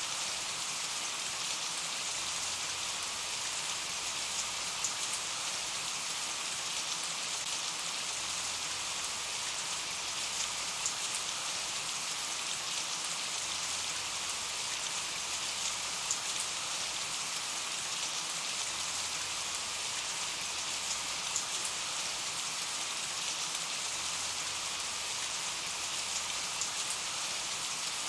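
Steady rain falling, a continuous hiss with scattered small drop ticks.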